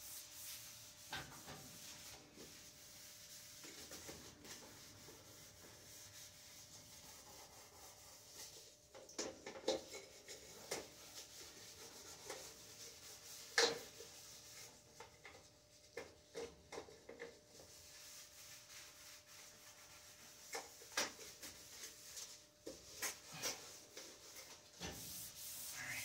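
Green scouring pad rubbing across the enamel top of an electric stove in a faint, steady scrubbing, with scattered light clicks and knocks, the sharpest about halfway through and several more near the end.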